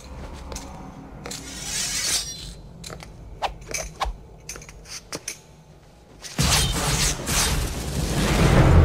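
Dramatic promo soundtrack: scattered sharp clicks and swishing effects over a faint low drone, then a little past six seconds in, loud full music comes in and swells toward the end.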